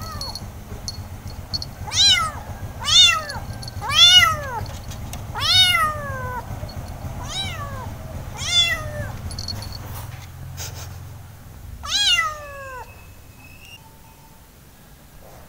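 Orange kitten meowing seven times, high-pitched calls that each rise then fall in pitch, roughly one a second at first with a longer gap before the last. A low steady hum runs underneath and fades out about eleven seconds in.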